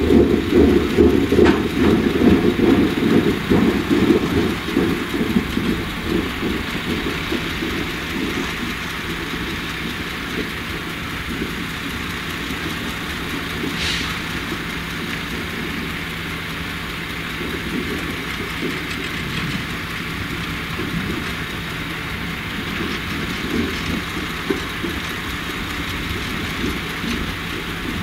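ROPA Maus 5 sugar-beet cleaner loader running steadily at a distance, a constant engine hum with a heavier rumble during the first few seconds that then eases to an even level. A single sharp clack sounds about halfway through.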